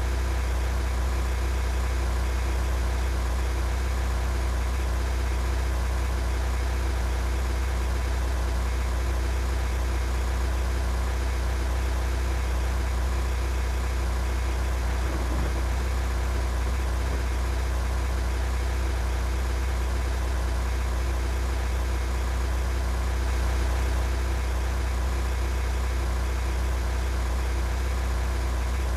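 A motor vehicle's engine running steadily: a low, unchanging drone.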